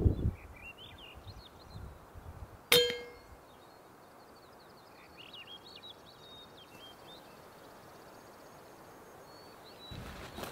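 A single shot from a Kral Puncher Break air rifle about three seconds in: a sharp crack with a brief metallic ring. Small birds chirp around it, and near the end there are footsteps through grass.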